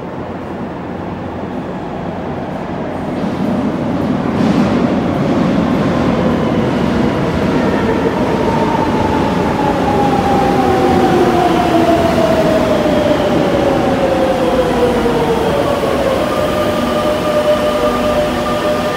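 Metro de Madrid train pulling into an underground station. Its running noise grows louder as it approaches, and a whine falls steadily in pitch as it slows for the stop. Near the end it settles into a few steady tones as it comes to rest.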